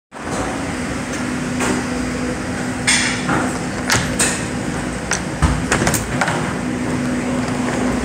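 Steady machinery hum with one low steady tone, broken by several sharp knocks and clatters, the loudest about three to four seconds in and again about five and a half seconds in.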